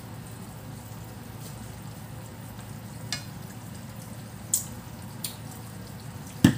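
Ginger-soy sauce simmering around a fried fish in a frying pan, with a steady bubbling sizzle and a few sharp pops. A louder thump comes near the end.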